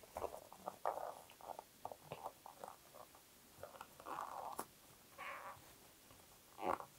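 Faint rustles and scrapes of thick 10 mm yarn being drawn through loops with a crochet hook as a slip stitch closes the round, with scattered small clicks.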